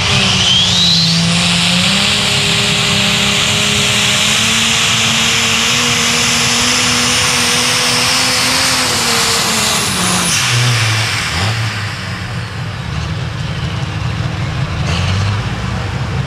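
Turbocharged diesel engine of an International Harvester Limited Pro Stock pulling tractor at full power under load: the pitch climbs at the launch with a high rising whistle, then holds steady and high. About ten seconds in the engine drops off and runs on lower and rougher.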